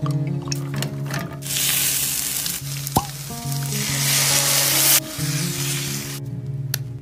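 Sliced onions frying in a stainless steel pan, with a loud sizzle lasting about three and a half seconds from about a second and a half in as dark liquid is poured over them. A wooden spoon stirs them near the end. Background music with sustained notes plays throughout.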